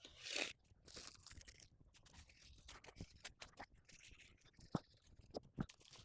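Faint, scattered crunching rustles and small clicks of objects being handled, with a short rustle at the start and a sharper click near the end.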